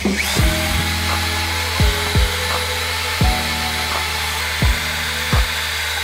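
Wire brush spun by a power drill inside a bicycle frame's bottom bracket shell, a steady scouring hiss as it cleans out the threads. Lofi hip-hop music with a deep, regular kick drum plays over it.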